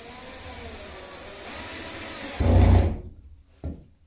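Ozito cordless drill-driver running steadily as it drives a screw up into the plasterboard ceiling, turning louder and deeper for about half a second as the screw draws tight, then stopping. A single short knock follows.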